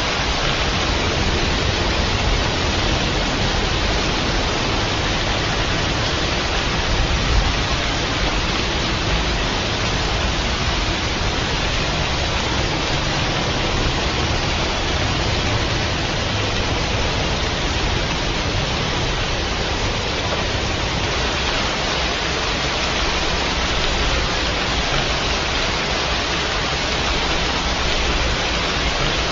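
Steady, dense rainfall: an even hiss with no pauses, a slight swell in the low rumble about seven seconds in.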